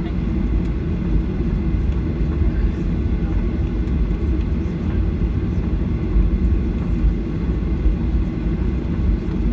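Cabin noise of a Boeing 737-800 airliner heard from a window seat: the CFM56 jet engines and airframe making a steady, low rumble.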